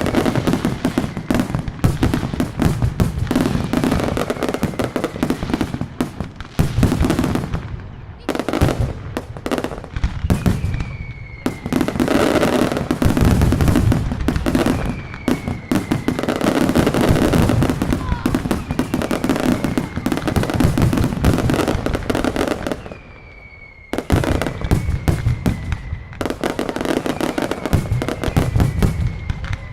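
Mascletà firecracker barrage: dense, rapid bangs running almost without a break, with several falling whistles over the top and a brief lull about two-thirds of the way through.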